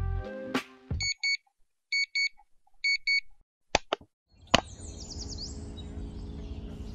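Electronic alarm clock beeping in pairs, three double beeps about a second apart, after a music sting ends. A few sharp clicks follow, then steady outdoor background noise with a few quick high chirps.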